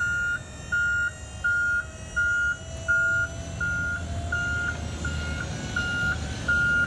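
Warning beeper sounding a steady series of short, even beeps, about one and a half a second, while the Scorpion truck-mounted attenuator moves on its hydraulic arms. A low steady hum from the truck runs underneath.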